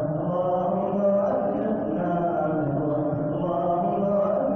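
Imam chanting an Arabic dua (supplication) of the Taraweeh prayer in a slow, drawn-out melodic voice, holding long tones that bend slowly, with no pauses.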